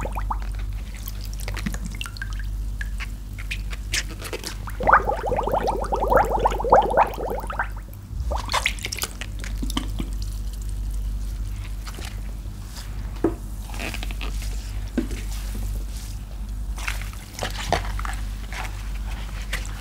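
Soaked foam sponges squeezed and pressed in a basin of soapy water, squelching and crackling as water pours and drips off them, with the longest run of squelching from about five to eight seconds in. A steady low hum sits underneath.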